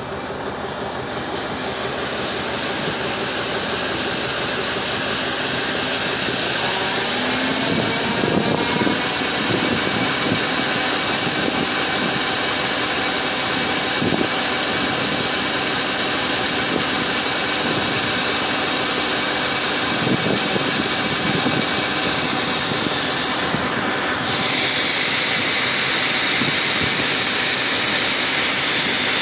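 John Deere combine harvester running while picking corn: a steady engine and machinery hum with a high whine and hiss, a few faint knocks along the way. It grows louder over the first couple of seconds, then holds steady.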